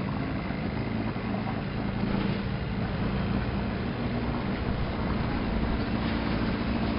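Boat engine running steadily with a low drone, over water and wind noise.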